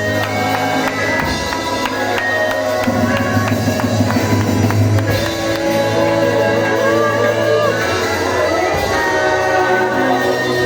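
Worship music: long held keyboard chords with light percussion, and a voice rising and falling over it for a few seconds partway through.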